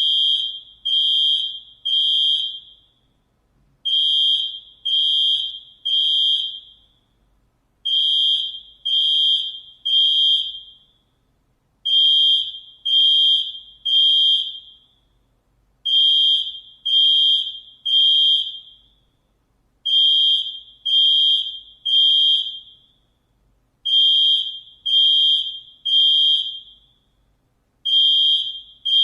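High-pitched electronic alarm beeping in groups of three, one beep a second, with a pause of about two seconds between groups, repeating steadily: the temporal-three evacuation alarm pattern.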